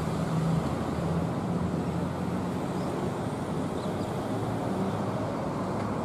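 Steady hum of road traffic, a continuous low rumble with no distinct single event.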